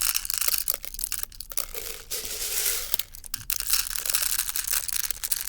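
Airsoft guns firing BBs at plastic water bottles: a dense, irregular crackle of shots and hits on the plastic, with short breaks.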